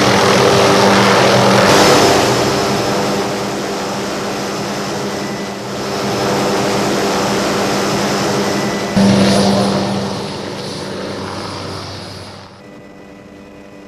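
Tour helicopter in flight: turbine and rotor noise with rushing air. It gets louder with a sudden step about nine seconds in, then drops sharply to a much quieter level near the end.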